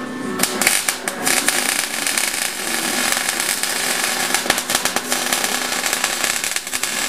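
Wire-feed (MIG) welder's arc crackling and sizzling steadily with irregular pops as a grille is welded to the body panel, starting about half a second in.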